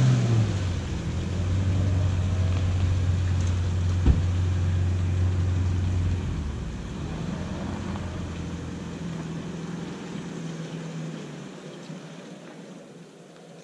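Engine of a four-wheel drive stuck in a muddy bog hole, running at steady revs for about six seconds as it tries to drive out, then easing off and fading. One sharp knock about four seconds in.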